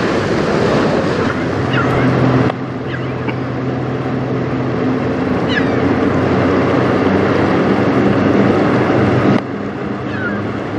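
Wind and choppy river water rushing steadily, with the low drone of a motoring boat's engine underneath. The sound changes abruptly about two and a half seconds in and again near the end.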